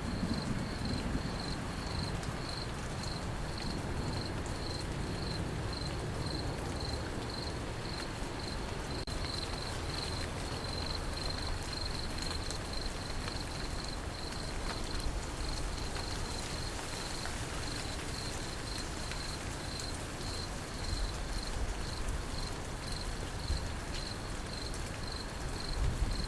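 Crickets chirping in a steady rhythm, about two high chirps a second, over an even hiss of rain. A low rumble of thunder dies away in the first second.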